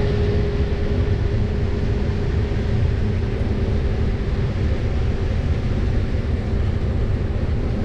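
Case IH 8250 combine running steadily during corn harvest: a low rumble with a steady whine over it.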